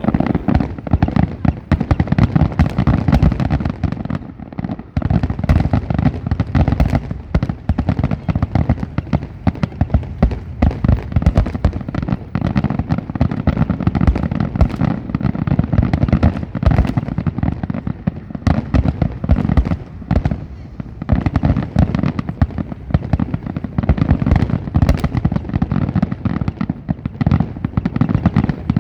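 Fireworks grand finale: a dense, continuous barrage of shell bursts going off in rapid succession, with short lulls about four seconds in and again about twenty seconds in.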